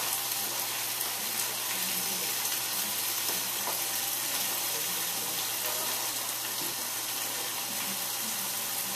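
Pork chops frying in a pan, a steady sizzle.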